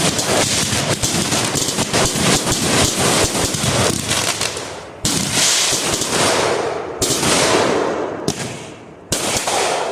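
Fireworks going off: a rapid run of firecracker pops for about four seconds, then four separate loud bangs, each trailing off in a fading hiss.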